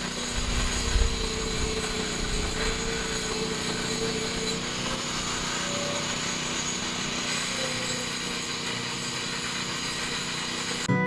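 A motor running steadily, a constant drone with a slowly wavering hum. Acoustic guitar music starts at the very end.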